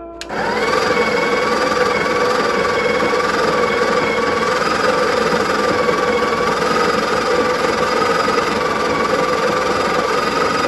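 Built-in conical burr grinder of a Breville Barista Express espresso machine grinding coffee beans into the portafilter: a steady motor whine over a grinding rush. It starts just after the beginning and cuts off suddenly at the end.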